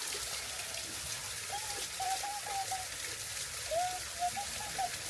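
Water running and trickling steadily in a shallow river, with two short runs of high, flat, whistle-like notes partway through.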